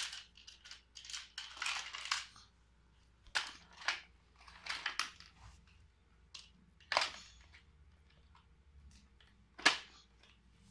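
Plastic parts of a Fisher-Price Imaginext Shark Bite Pirate Ship toy clicking and clattering as they are handled on a tile floor: scattered sharp clicks and short rattles with quiet gaps between them.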